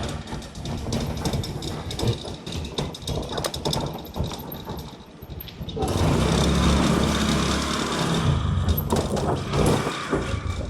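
A small engine running with a rattle of clicks, turning louder and steadier about halfway through.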